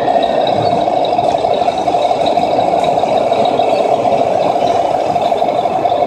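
Steady idling truck-engine sound from an RC model truck's engine-sound unit, running evenly at a constant pitch.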